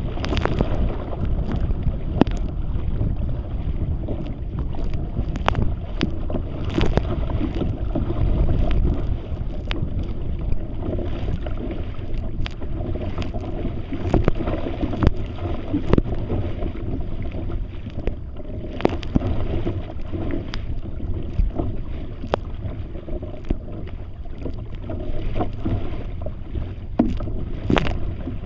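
Wind buffeting the microphone of a camera mounted low on a kayak's bow, with a steady rumble, while choppy waves slap and splash against the bow. Spray and waves strike the camera as many short, sharp splashes.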